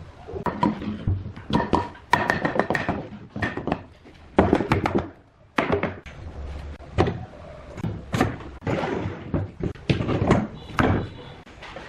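Irregular series of wooden knocks and thunks, loud and uneven, some with a brief ring, as of wooden parts being knocked and handled during assembly.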